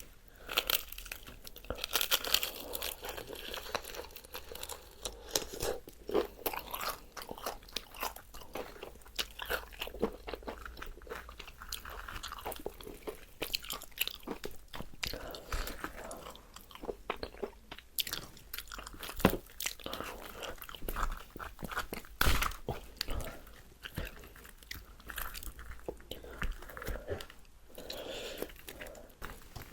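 Crispy fried chicken being bitten and chewed close to the microphone: a dense run of sharp crunches and crackles, with the loudest crunches about 19 and 22 seconds in.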